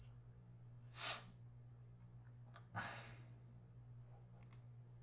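Near silence with a steady low hum. Two breaths are heard close to the microphone, about a second in and again near the three-second mark, with a few faint mouse clicks.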